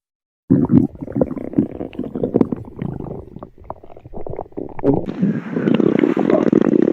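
Human stomach growling and gurgling: a long rumble full of small crackling pops starts about half a second in. About five seconds in it turns abruptly louder and rougher, with a hiss on top.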